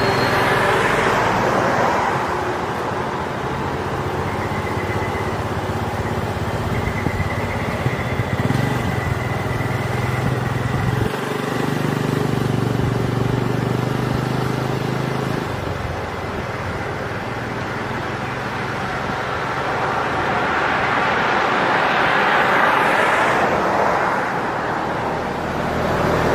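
A motor vehicle's engine running, with the sound swelling and easing a few times and a low steady drone for a few seconds near the middle.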